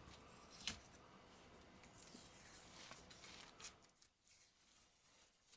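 Faint handling sounds: light rustling with a sharp click under a second in and a few more clicks around three and a half seconds, as hands work on a painted phaser rifle prop.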